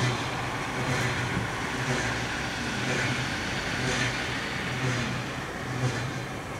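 Steam locomotive C58 239 being turned on a turntable: a low mechanical hum that pulses about once a second, each pulse with a short hiss, as the turntable rotates.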